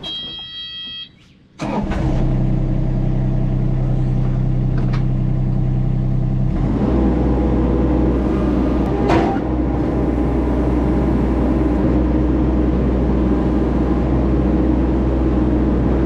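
Kubota U25 mini excavator's diesel engine comes in suddenly about one and a half seconds in, after a brief electronic beep, and runs steadily. About six and a half seconds in, its sound shifts deeper and heavier.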